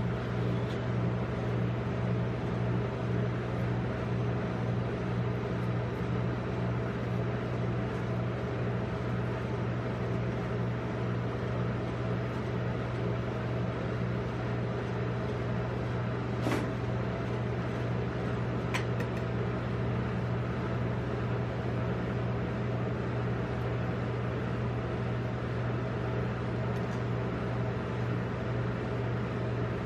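Steady hum of the rolled-ice-cream machine's refrigerated cold plate running, with two faint ticks a couple of seconds apart about halfway through.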